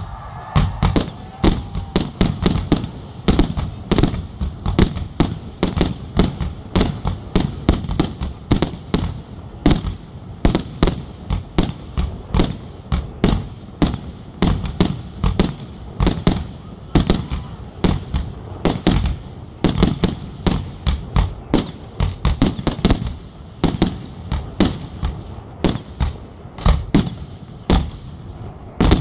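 Aerial fireworks display: a running barrage of shells launching and bursting, two or three sharp bangs a second.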